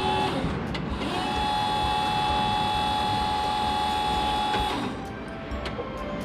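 A small electric motor, likely in a toy forklift, whines steadily at one pitch. It starts about a second in and stops shortly before five seconds.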